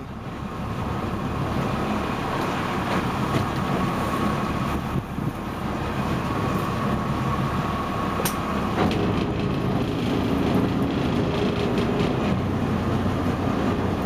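Sportfishing boat's engine running steadily with a low, rapid throb.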